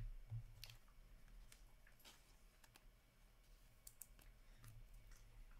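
Faint, irregular clicks and soft snaps of hockey trading cards being flipped through and slid against one another by hand, over a faint low hum.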